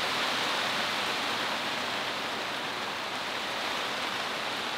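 Steady rain falling on the tent, with hot water poured from a stainless steel kettle onto a drip-coffee bag in a steel mug for the first few seconds.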